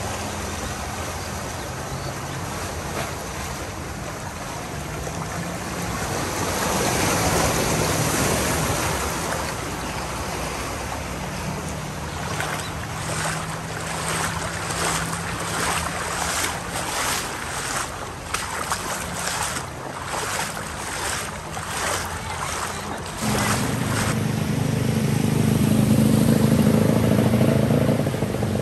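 Vehicles driving through knee-deep floodwater: a steady wash of water pushed aside by tyres, with engines running underneath. In the middle comes a run of regular splashes, one or two a second. Near the end a motorbike engine grows louder as it ploughs through the water.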